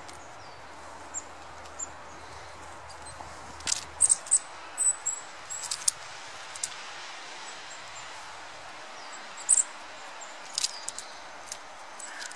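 Short, very high-pitched chips from small songbirds over a steady outdoor hiss, mixed with several sharp clicks and scratches, busiest about four to six seconds in and again around ten seconds.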